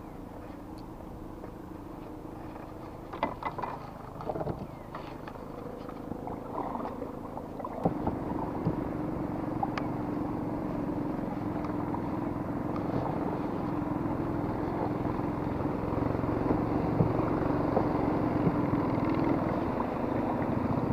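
A motor engine hums steadily and grows louder from about eight seconds in, with a few knocks and clatters around three to five seconds in.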